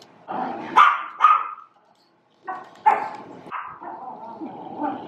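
Chihuahua barking in short, sharp yaps: a few in quick succession, a pause of about a second, then a few more.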